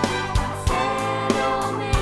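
Music with a steady drum beat, about one and a half beats a second, over sustained chords.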